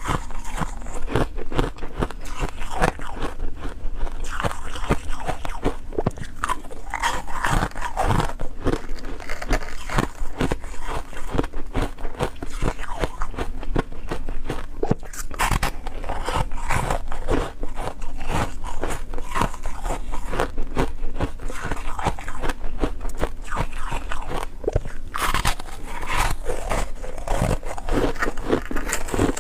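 Close-miked crunching of freezer frost ice being bitten and chewed: continuous crisp crunches.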